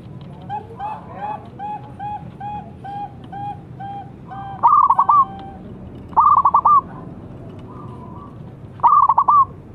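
Zebra dove (perkutut) calling: a run of short, soft coo notes about two a second, then three loud, stuttering, rapidly repeated coos, each about half a second long, a second or two apart.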